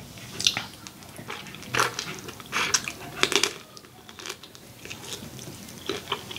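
Close-miked chewing and lip-smacking while eating shrimp, heard as irregular wet smacks and clicks.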